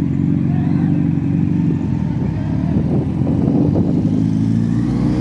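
Inline-four superbike engine running steadily at a constant pitch.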